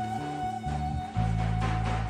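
Instrumental passage of a Turkish folk song recording: a long held melody note, wavering slightly, over a bass line that moves between notes.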